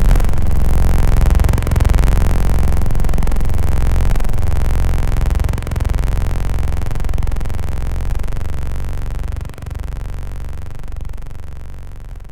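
Electronic siren and buzz noise: a loud low buzz under layered sweeping tones, stepping down in loudness a few times and fading out over the last couple of seconds.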